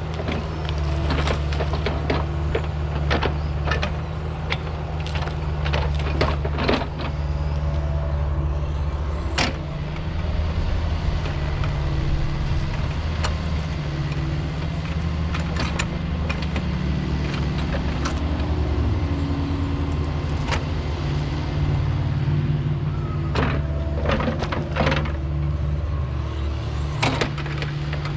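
Diesel engine of heavy earth-moving equipment running steadily under load, its pitch shifting a little around the middle, with many sharp cracks and knocks scattered through.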